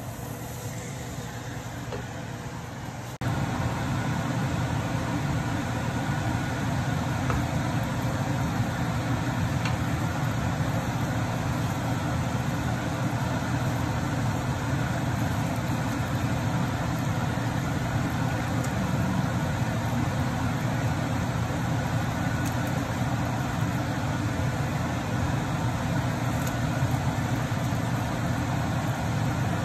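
Steady low mechanical hum with a hiss, which steps up louder about three seconds in and then stays even.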